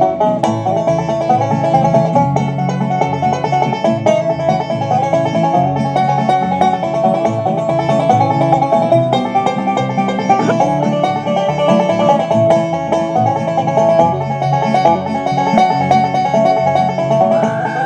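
Live bluegrass band playing an instrumental break, with a banjo picking fast runs of notes over acoustic guitar and upright bass.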